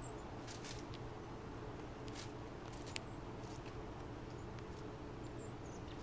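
Faint outdoor ambience: a steady low hum, with scattered light ticks and a few very short, very high-pitched chirps.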